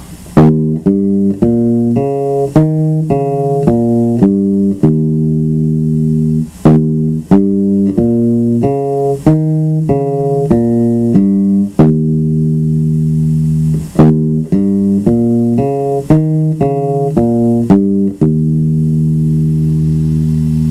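Electric bass guitar playing a scale pattern one note at a time, stepping up and back down in three runs, each ending on a held low note.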